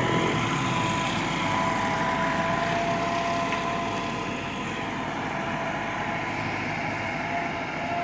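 Farm tractor engine running steadily as it drags a plank leveller (suhaga) over dry ploughed soil, with a steady whine that fades out about two-thirds of the way through.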